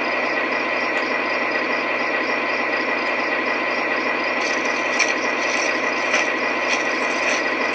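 Model trains running on the layout: a steady mechanical rattle and hum, with a few sharp clicks from about halfway on.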